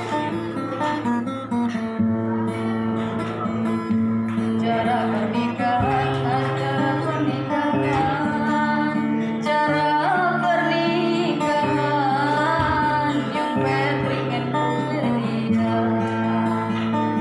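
A Batang Hari Sembilan regional folk song: a singer's wavering, ornamented vocal line over guitar accompaniment with held low notes, the voice entering about five seconds in.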